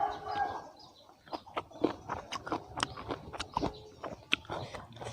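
Close-up eating sounds: crunchy chewing and wet mouth smacks of someone eating a pounded salad of pickled shellfish and crab, starting after a short pause about a second in and going on as irregular clicks.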